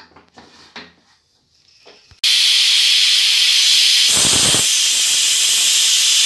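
A few faint clicks from handling the aluminium pressure cooker lid, then about two seconds in the cooker's whistle weight lets out a sudden, loud, steady hiss of steam as built-up pressure lifts it, with a short fuller burst about four seconds in.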